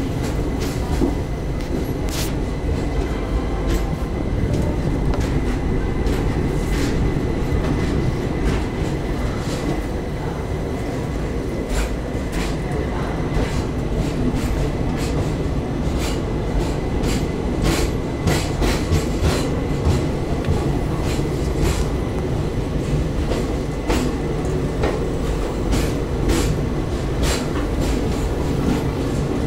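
Indian Railways express train pulling out of the station, heard from an open coach doorway: a steady rumble of wheels on the rails, broken by irregular sharp clicks and clacks over rail joints. A faint, steady high whine runs underneath.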